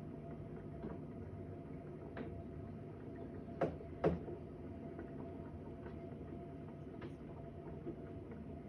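Knocks carried through the building's walls: two sharper knocks about half a second apart a few seconds in, and fainter knocks scattered before and after, over a steady low hum. The resident attributes these night-time noises to a neighbouring flat.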